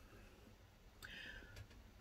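Near silence: room tone, with a faint, brief hiss about a second in.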